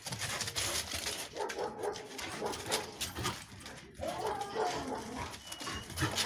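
A Central Asian Shepherd Dog making whining sounds, mostly from about four seconds in, after a few seconds of scuffing noises.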